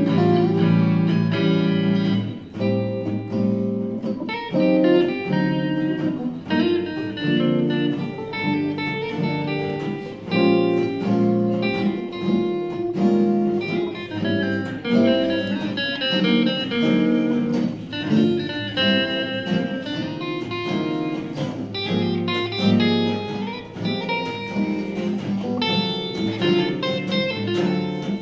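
A live guitar trio playing: an acoustic guitar together with two electric guitars through small amplifiers, picking a busy run of melody notes over chords without a break.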